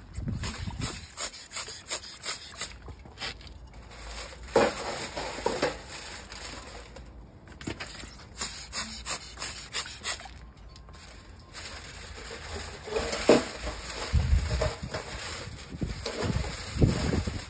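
A sponge-headed brush rubbing and scrubbing over freshly fired pots, with the aluminium foil wrapping crinkling in irregular scratchy bursts. Low rumbles of wind on the microphone come near the start and again near the end.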